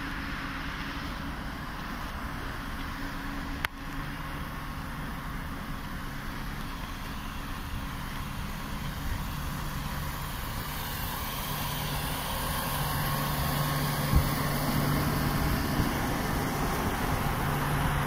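Steady hum and whir of a standing ED4M electric train's underfloor equipment running, with a low steady tone that grows louder in the second half. A single sharp click about four seconds in.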